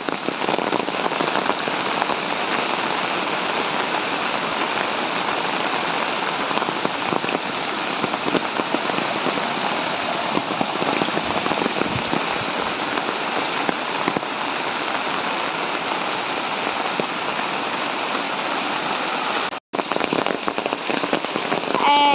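Steady monsoon rain falling, an even hiss of drops that cuts out for an instant near the end.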